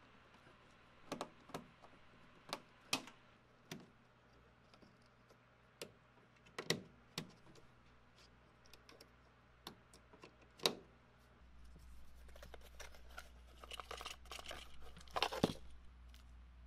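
Scattered small clicks and taps of wire and screwdriver work on DIN-rail terminal blocks. About eleven seconds in, a faint low hum starts, followed by the rustle and crinkle of paper instructions and a plastic parts bag being handled while a twist-lock connector is unpacked.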